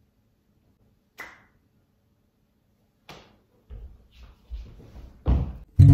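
A few isolated sharp taps or clicks in a quiet room, then a quick run of softer knocks ending in a louder thump.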